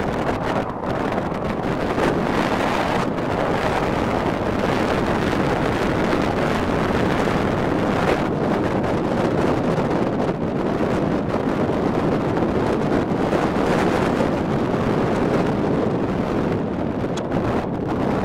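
Steady wind buffeting the microphone over the continuous rush of a moving boat on choppy water.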